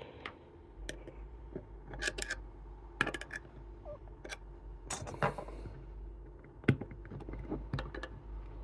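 Small metal clicks and clinks from a Chubb detector lever lock being taken apart by hand: scattered sharp clacks, some in quick runs of two or three, as its case and parts are handled.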